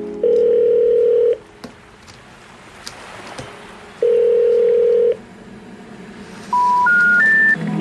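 Telephone tones: two long ringing tones about three seconds apart, then three short beeps rising in pitch, the special information tone that marks a call that cannot be completed. Faint handling of a cardboard box is heard between the tones.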